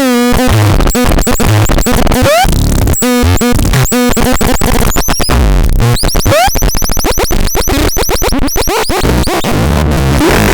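Harsh electronic noise from a synthesizer-type noise box: loud, dense buzzing that is chopped into stuttering cuts, with falling and rising pitch sweeps and a flurry of quick chirps in the middle.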